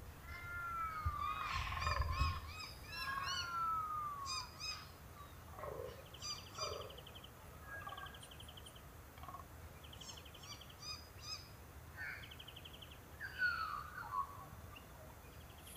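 Several birds calling together: a run of curved, falling whistled calls in the first few seconds, then chattering notes and quick trills.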